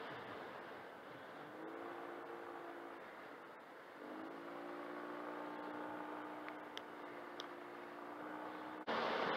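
Yamaha TMAX 500 maxiscooter's parallel-twin engine running under way, its pitch rising about a second and a half in and again about four seconds in, then holding steady. Near the end a sudden, much louder rush of wind noise comes in.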